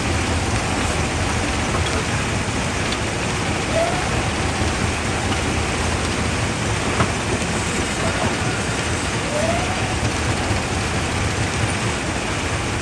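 Quarry primary jaw crusher running: a steady, dense mechanical noise with a single faint knock about seven seconds in.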